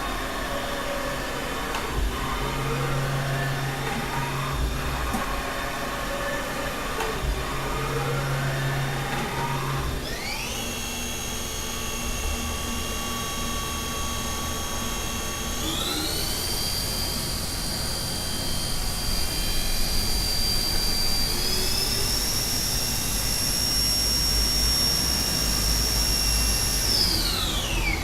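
Haas VF-2 vertical machining center running. For about the first ten seconds its drives whine, rising and falling in pitch as the axes move back and forth. Then the 20 HP geared-head spindle spins up to a steady whine that steps higher in pitch twice and winds down near the end.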